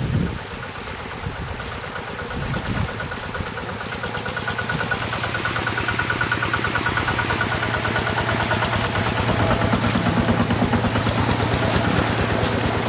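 Engine running steadily with a fast, even pulse, over water rushing across the ground.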